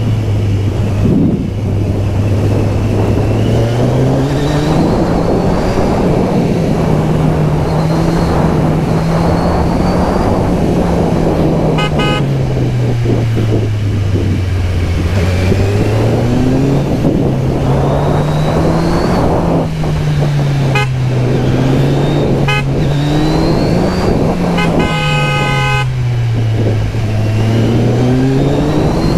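Kawasaki Z1000SX inline-four motorcycle engine under way, its revs rising and falling again and again as the rider accelerates and eases off, over a steady rush of wind. A vehicle horn beeps in a quick series about twelve seconds in and sounds once, longer, near the end.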